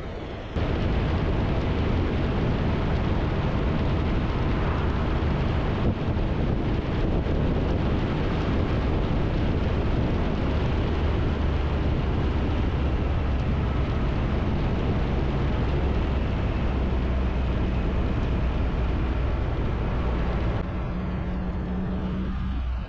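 Triumph Tiger 1200's three-cylinder engine running at a steady cruise, with a heavy rush of riding wind over the microphone. The sound eases a little near the end as the bike slows.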